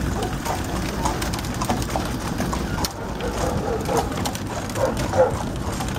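A trotting horse's hooves clip-clopping on the road as the old horse-drawn buggy rolls along, with a low rumble of the wheels and wind. A few short pitched sounds come in between about three and five seconds in, the loudest near five seconds.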